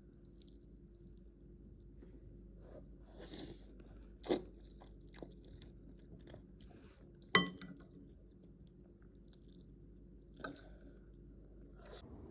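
A few separate clicks and knocks of small objects being handled over a faint steady room hum. The loudest comes about seven seconds in and rings briefly.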